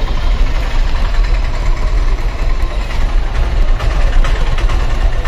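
Steady engine and road rumble heard from inside a moving car in street traffic, deep and continuous.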